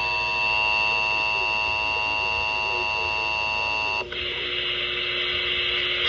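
A weather alert radio's speaker sounds a steady, loud electronic alert tone of several pitches, signalling a flash flood warning. About four seconds in, the tone gives way to a hissier, noisier signal.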